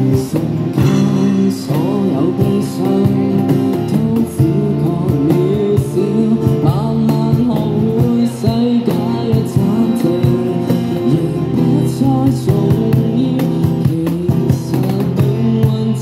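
Amplified male voice singing a song through a handheld microphone, accompanied by guitar.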